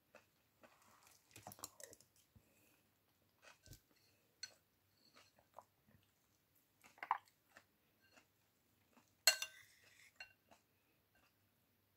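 Metal spoon clinking and scraping against a ceramic bowl, with soft chewing between. The loudest is a sharp ringing clink about nine seconds in.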